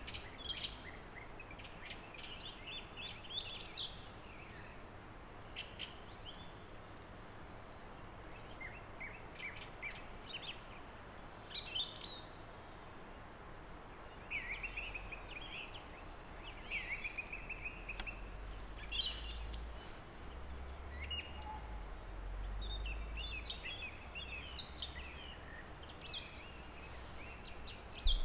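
Small songbirds chirping and singing in short calls and trills, one after another, over a steady faint background hiss. A low rumble comes in around the middle.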